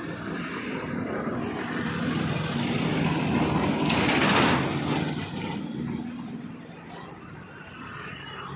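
A motor vehicle's engine passing close by, growing louder to a peak about four seconds in and then fading, with a short burst of hiss at the loudest point.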